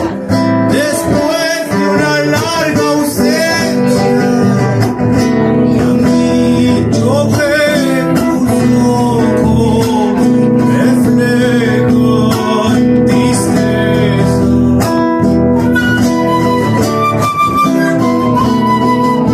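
Live Argentine zamba played on acoustic guitars, with a male voice singing the verse over strummed chords. Near the end, held melody notes come in, the start of a transverse flute line.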